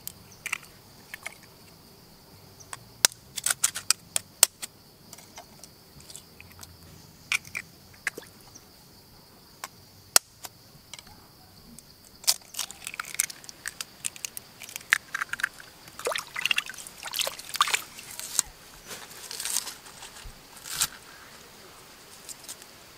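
Goose eggs being cracked open and emptied into a hollowed gourd: sharp taps and cracks of shell with the wet trickle and slop of egg running out, scattered at first, then coming thick and fast in the second half.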